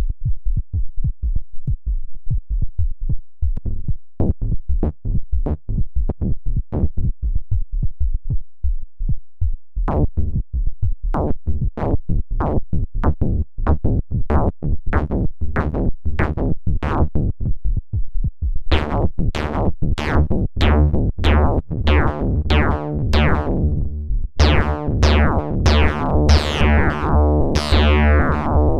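Eurorack modular synthesizer patch built around the Sinulator SineCore waveshaping module, playing a fast repeating sequence of short, crunchy percussive notes whose sharp attacks sweep downward. The notes turn brighter and harsher about ten seconds in, and again near eighteen seconds, when a steady low bass joins underneath.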